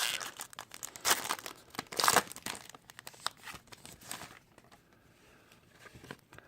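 Crinkling and rustling of trading-card pack wrapping and cards being handled, in several short bursts that die away after about four seconds.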